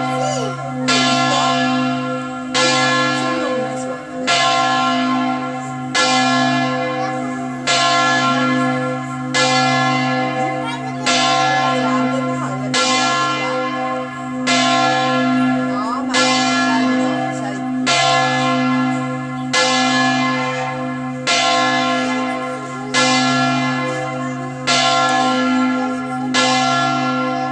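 Church bells ringing in the belfry, a new stroke about every second and a half to two seconds, each ringing on with a deep hum into the next.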